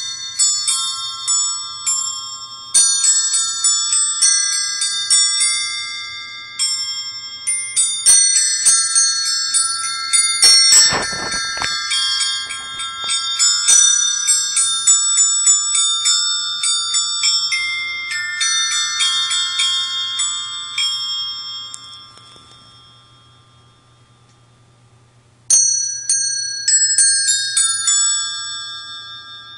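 A Caroling Christmas Bells set of small wired brass bells chiming a carol tune, one bell struck at a time so that the notes ring and overlap. About three quarters of the way in the tune ends and the last notes ring away, then a new tune starts a few seconds later.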